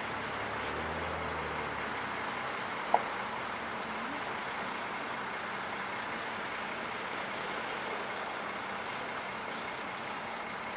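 Engine running steadily, with one short, sharp metallic clink about three seconds in.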